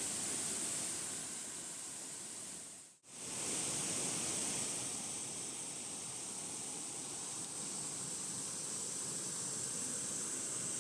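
Steady rushing noise of a waterfall, heard from some way off, with a hiss on top. The sound cuts out for a moment about three seconds in, then carries on unchanged.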